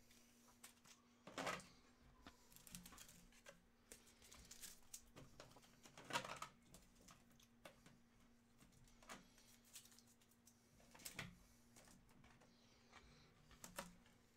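Near silence, broken by a handful of faint, short clicks and taps scattered through it, with the strongest about one and a half seconds and six seconds in.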